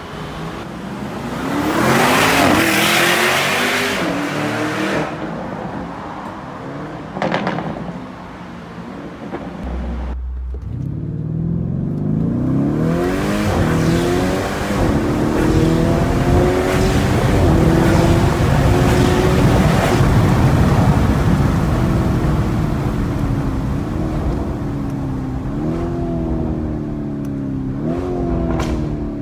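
Lamborghini Urus twin-turbo V8 through a Fi Exhaust valvetronic catback exhaust. First it swells loudly as the SUV accelerates past. Then, heard from inside the cabin, it pulls hard through the gears, its note climbing and dropping again at each gear change.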